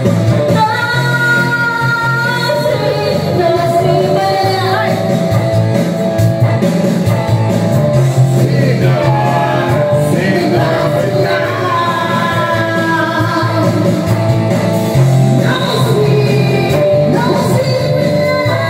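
A woman singing karaoke into a corded handheld microphone over recorded backing music, her voice amplified through the karaoke system.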